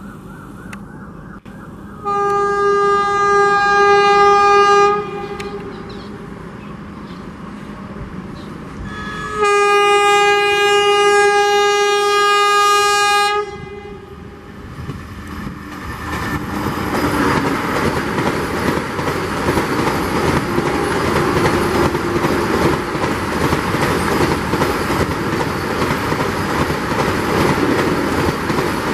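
Vande Bharat Express (Train 18) electric multiple-unit train sounding two long, steady blasts on its horn, the first about two seconds in and the second about nine seconds in. From about fifteen seconds in, the rush of its wheels on the rails builds as it runs through at speed.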